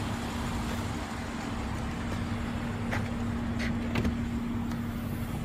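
Light clicks about three and four seconds in, the second as the BMW M235i Convertible's trunk release is pressed and the boot lid unlatches. Under them is a steady background hum with a faint steady tone.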